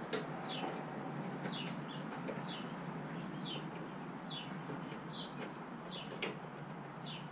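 A small bird chirping over and over: short falling notes, about one a second. A faint steady hum runs underneath, and a single sharp click comes near the end.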